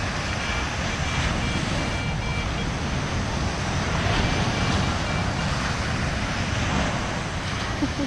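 Steady rush of surf breaking on the beach, mixed with wind. A faint high tone sounds briefly twice.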